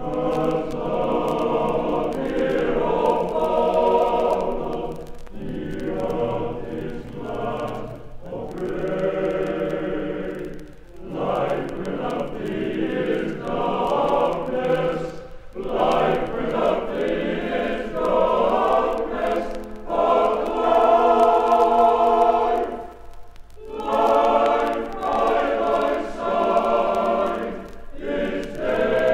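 Male voice choir singing in long held phrases with short breaks between them, played from a 1970 vinyl record.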